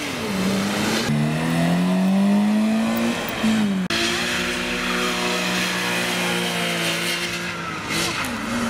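Porsche flat-six engines pulling away one after another. First a 911 Turbo's note climbs in pitch over the first few seconds. After a sudden cut, a Boxster's engine runs at a steadier pitch that sinks a little and rises again near the end.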